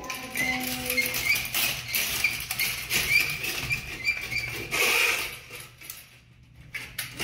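RIDGID closet auger being cranked and worked into a clogged toilet: its cable squeaking and scraping in the porcelain bowl and trap in short high chirps, with water sloshing. It falls quiet for about a second near the end.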